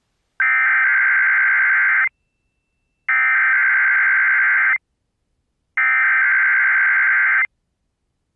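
NOAA Weather Radio EAS/SAME digital header: three identical buzzy data bursts of under two seconds each, with about a second of silence between them. This is the coded header that opens a weekly test of the warning system.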